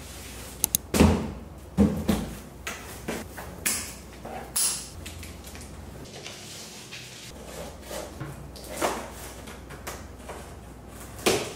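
Large cardboard monitor box being handled: scattered knocks, scrapes and rustles as the plastic strapping is pulled off, the box is set on a table and its flaps are opened.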